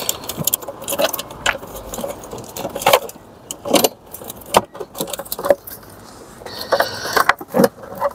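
Irregular plastic clicks and knocks, with a short scraping rub late on, as the SAM unit's plastic box and its wiring plugs are pushed and fitted back into their housing.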